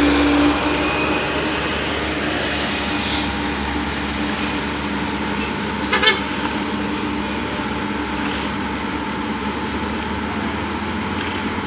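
Heavy diesel vehicles running: a dump truck driving past, then an excavator and a water tanker truck working on the road, under a steady engine hum. A short burst of clicks about six seconds in.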